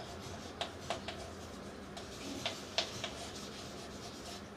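Chalk writing on a blackboard: a string of short, sharp, irregular clicks as the chalk strikes and strokes the board.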